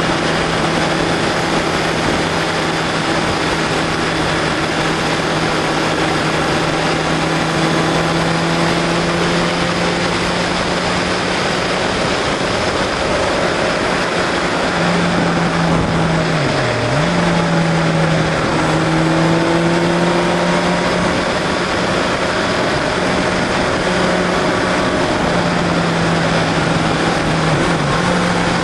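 Motorcycle engine pulling at steady revs at speed, with loud wind rush on the microphone. The revs drop briefly about 17 seconds in and again near the end.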